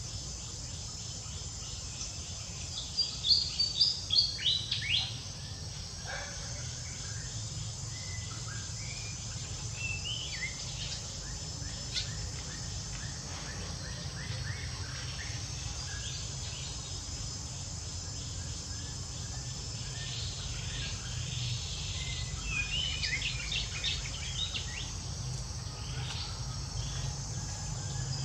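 Outdoor ambience of insects trilling steadily, with a quick run of loud, high chirping calls about three seconds in and more scattered chirps later on. A steady low hum runs underneath.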